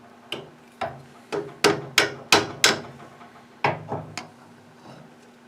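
Hammer blows on metal, about nine sharp strikes, some in quick runs, each with a short ring, knocking at a pin in the Easy washing machine's shaft to try to drive it out.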